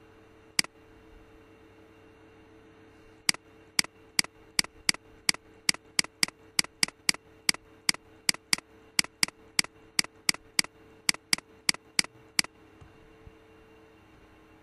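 Computer mouse button clicking: one click, then a run of about two dozen quick, sharp clicks at roughly three a second, which stops about two seconds before the end. A faint steady hum runs underneath.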